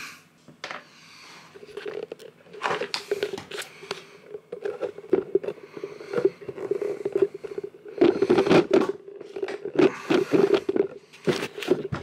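Camera and its microphone being handled and moved: irregular rubbing, scraping and knocking against the mic, getting louder and busier after the middle.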